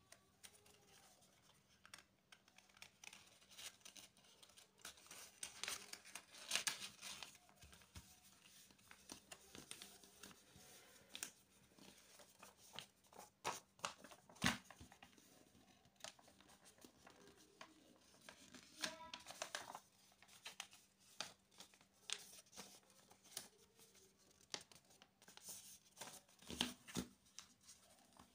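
A sheet of A4 printer paper rustling and crinkling as it is folded and creased by hand, in many short, faint crackles with a few sharper crisp snaps.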